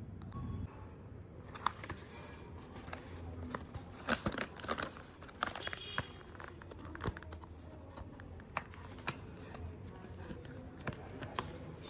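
Perfume packaging being unwrapped and opened by hand: crinkling, tearing and scattered sharp clicks, busiest about four to five seconds in.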